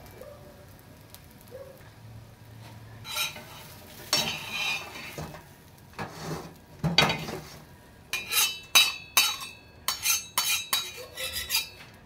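Metal turner scraping across a flat tawa as the fried fish is lifted off it, then a quick run of sharp, ringing clinks of metal against a stainless steel plate.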